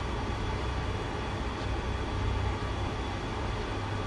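Steady rumbling noise with a hiss over it, rising and falling slightly in the low end.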